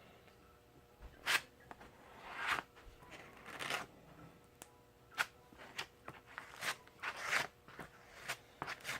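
A card scraper dragging a thin skim coat of Goop adhesive along an elevon hinge line, in a series of short scraping strokes at irregular intervals.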